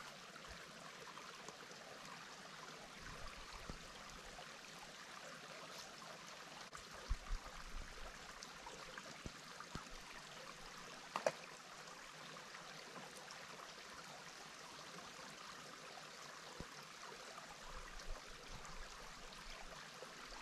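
Small woodland stream trickling faintly and steadily, with a couple of brief knocks midway.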